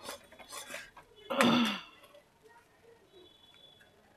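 A steel ladle stirring and scraping thick melted jaggery in an aluminium kadhai, faint and soft. About a second and a half in comes a short, louder throat-clearing sound.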